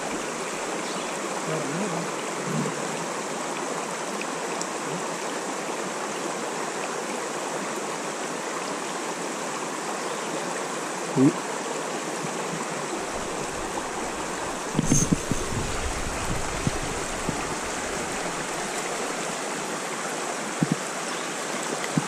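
Mountain trout stream running over a rock ledge: a steady rush of flowing water. It is broken only by a brief pitched blip about halfway through and a few short low bumps about two-thirds through.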